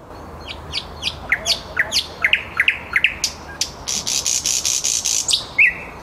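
Thrush nightingale singing: a run of quick down-slurred whistles, then a loud, fast rattle of clicks at about seven a second, ending on a short note.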